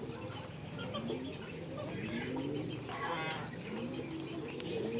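A flock of Muscovy ducks giving soft, low cooing calls that rise in pitch, several overlapping at about one a second. A single sharper call comes about three seconds in.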